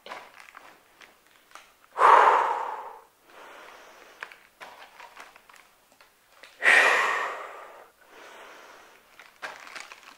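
A woman breathing hard with exertion through deadlift repetitions: two loud, forceful breaths out, about two seconds in and about seven seconds in, each followed by a quieter breath in. Faint clicks and rustles come between them.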